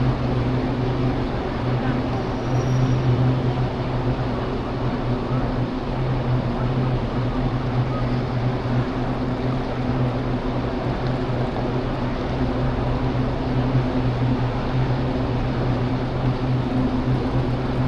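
Steady low mechanical hum that holds at an even pitch throughout, with indistinct voices in the background.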